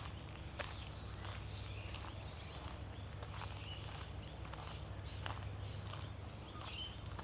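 Many small birds chirping and calling at once, in quick, repeated short downward-sweeping notes, over a steady low hum.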